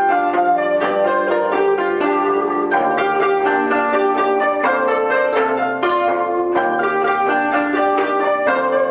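Koto ensemble playing a steady stream of plucked, ringing notes in several parts at once, with a shakuhachi bamboo flute playing along.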